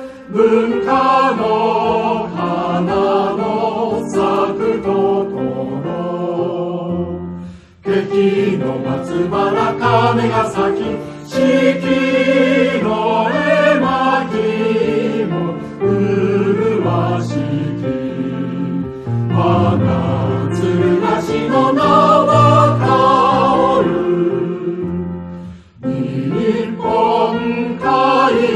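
Background music with voices singing in chorus, the notes held and wavering, with short breaks about a quarter of the way in and again near the end.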